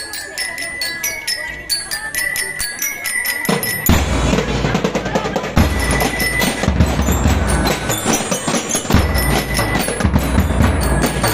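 Drum and lyre band playing: bell lyres ring out a quick melody over light snare drumming, and about four seconds in the bass drums and full percussion come in heavily.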